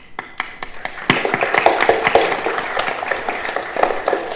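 Applause: many hands clapping quickly and irregularly, growing louder about a second in.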